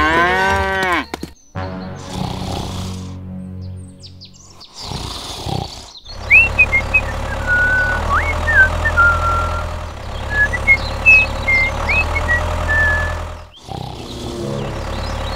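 Dubbed soundtrack of sound effects: a short cartoonish sliding-pitch effect at the start, then a steady low engine drone for the toy tractor with bird chirps and whistles over it from about six seconds in.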